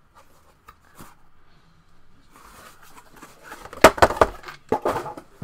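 Small cardboard Funko mystery box handled and shaken, a few faint clicks and then, about three and a half seconds in, a quick run of sharp knocks and rustles as the box and the vinyl figure inside it rattle.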